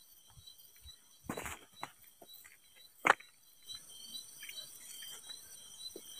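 Crickets chirping in a steady, high, even trill, with a few short knocks and thumps over it, the loudest about three seconds in.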